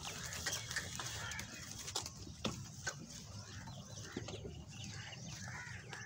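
Quiet farmyard ambience: faint bird calls in the background, with a few soft knocks.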